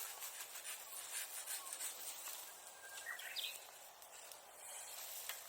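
Bonfire of old wooden sericulture tools burning with quick crackles over a steady hiss. A short thin whistle rises about three seconds in.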